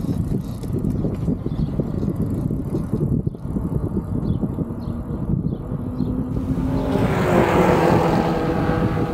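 Wind buffeting the microphone of a bike-mounted camera while riding on a paved road, a constant low rumble. About six seconds in, the sound turns brighter and hissier, with a faint whine.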